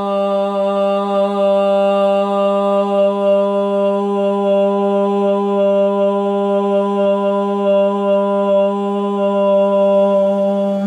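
A voice humming one long, steady low note, a mantra-like drone with strong overtones, held without a break.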